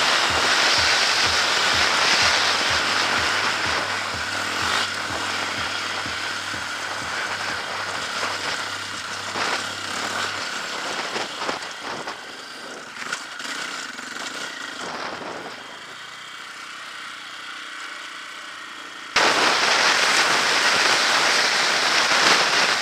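Dirt bike engine running under way, buried in heavy wind rush on the on-board camera's microphone, with scattered sharp knocks and pops from the bike riding over rough, rocky ground. The sound fades quieter through the middle, then jumps back loud all at once a few seconds before the end.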